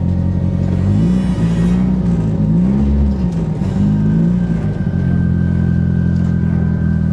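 Polaris RZR Pro R's 1997cc inline four-cylinder engine running at low revs under light throttle as the side-by-side creeps over snow. Its pitch rises and falls a few times between about one and four and a half seconds in, then holds steady.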